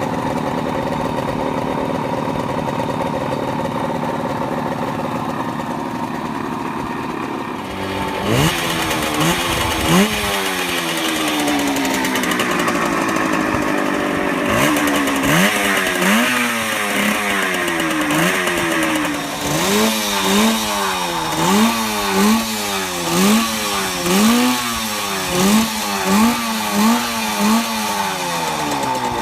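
Motorcycle engine idling steadily, then revved in sharp throttle blips that rise and fall back. The blips come a few at a time at first, then in a quick run of about one a second or faster near the end.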